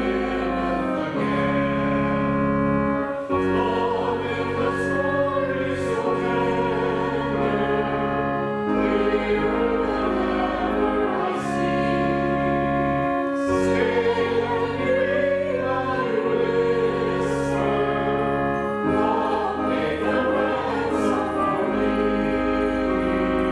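Voices singing a hymn over organ accompaniment, the organ holding full chords with long, steady bass notes that change every second or two.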